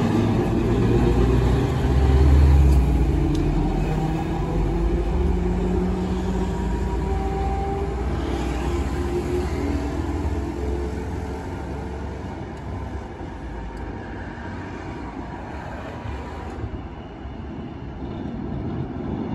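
Kumamoto City Tram 8500-series car 8501, an old-style direct-controlled tram with nose-suspended traction motors, pulling away. A low rumble and a whine rise in pitch as it speeds up, then both fade as it draws away.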